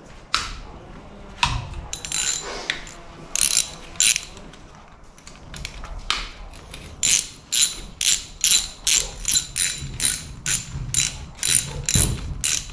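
Hand ratchet wrench clicking as it works the nuts holding down a Holley 4412 carburetor. A few separate clicks come first, then a steady run of about three clicks a second over the second half, with a dull knock near the end.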